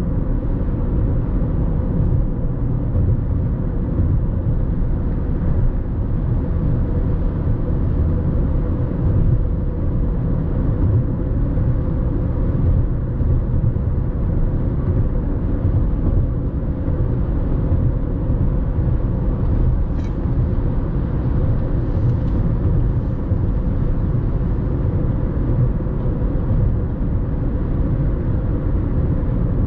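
Steady low rumble of a car driving at expressway speed: tyre and road noise with a faint constant engine hum. A couple of faint clicks come about two-thirds of the way through.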